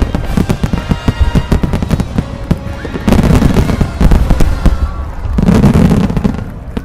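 Starmine fireworks volley: a rapid string of shell bursts, then two dense, sustained barrages of explosions, the last cutting off sharply.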